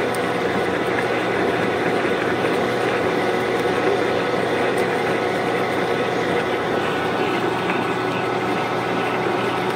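Milling machine turning a hole saw as it cuts through a heavy metal plate: a steady motor hum under an even cutting noise.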